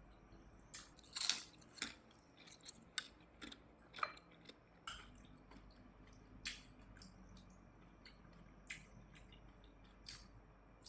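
A person biting and chewing salted sardines: faint, irregular crisp crunches and clicks, the loudest a little over a second in, growing sparser after about five seconds.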